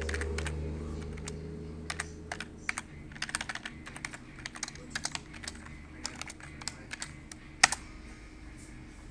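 Typing on a computer keyboard: irregular runs of key clicks, quickest in the middle, with one harder keystroke near the end.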